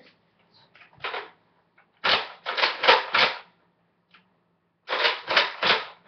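Gunshot noises made with the mouth while aiming a toy blaster: one short burst, then four in quick succession, then a run of three. They come too fast to be a bolt-action spring blaster firing.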